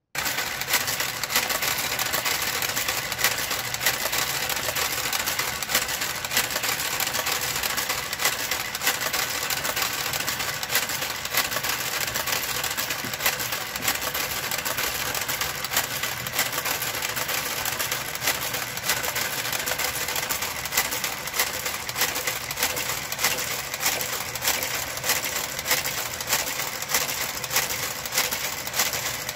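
Brother KG-93E garter carriage, set on Super speed, travelling across the needle bed of a Brother electronic knitting machine. It makes a steady mechanical clatter of rapid small clicks as it works the needles.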